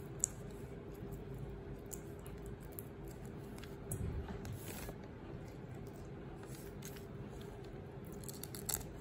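Raw shrimp being peeled by hand: small clicks and soft tearing of the shells, with a sharp click just after the start and a louder bout of handling around the middle. A steady low hum runs underneath.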